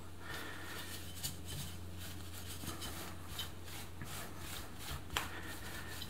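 Cloth wiping back and forth over a dusty perforated keyboard plate, faint repeated rubbing strokes, with one sharper tick about five seconds in.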